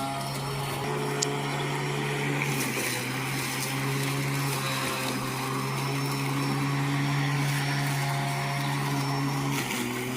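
Battery-powered electric lawnmower running steadily, its motor and spinning blade giving an even hum cutting through tall weeds, with a brief dip in the hum near the end.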